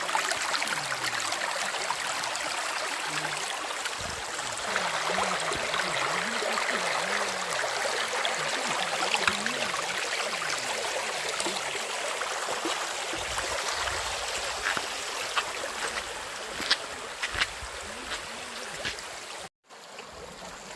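Shallow rocky hill stream running over stones, a steady rush of water with a few sharp knocks later on. It drops out abruptly near the end and returns quieter.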